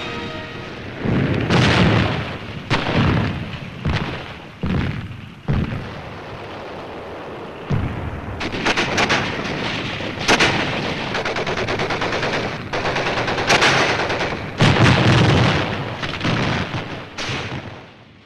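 Battle sounds of gunfire and explosions: a series of sudden heavy booms over a continuous crackle of rifle and machine-gun fire, dying away near the end.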